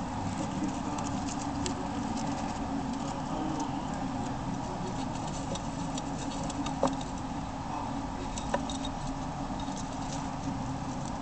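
Roborovski dwarf hamsters scurrying through wood-shaving bedding: light scratching and rustling over a steady background noise, with two sharp clicks, the first about seven seconds in and the second a second and a half later.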